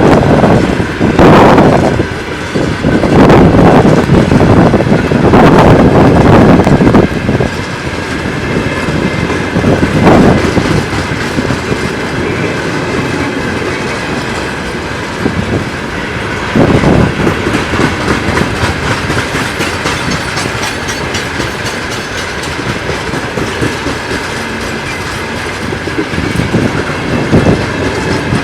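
Freight train rolling past on a grade, its wheels clattering over rail joints. The clatter is loudest and most rhythmic for the first several seconds, then settles into a steadier rolling rumble with occasional louder surges.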